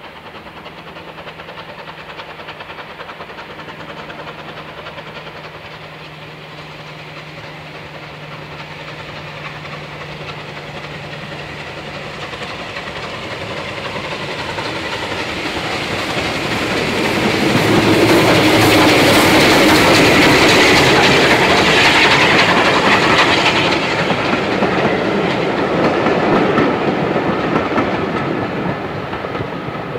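Bulleid Light Pacific steam locomotive 34072 '257 Squadron' working a passenger train past, its three-cylinder exhaust growing steadily louder as it approaches. Loudest a little past the middle as the engine and coaches go by with wheels clattering over the rail joints, then fading as the train draws away.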